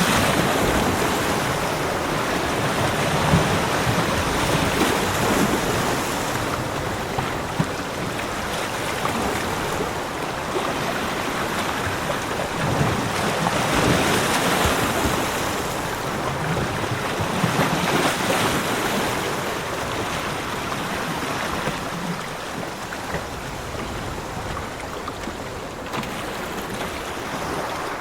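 Ocean surf washing onto a beach, a steady rush of water that swells and fades as each wave comes in, every few seconds.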